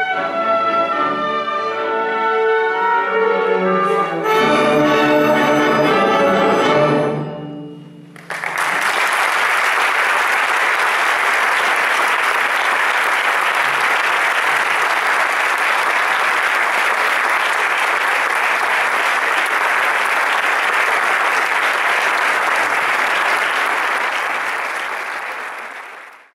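Student orchestra playing the closing bars of a classical piece, a fuller passage coming in about four seconds in, and ending on a final chord about seven seconds in. About a second later the audience breaks into steady applause, which fades away at the very end.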